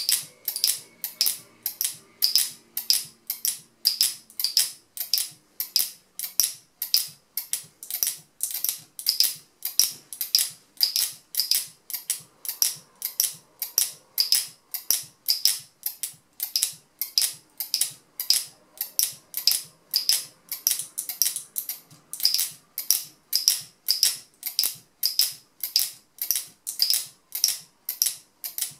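Turquaz speargun camera mount's locking mechanism being snapped locked and released over and over, a sharp click about two to three times a second in a steady rhythm.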